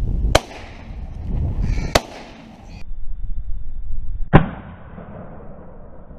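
Three shotgun shots, the second about a second and a half after the first and the third, the loudest, a little over two seconds later, with wind rumbling on the microphone in between.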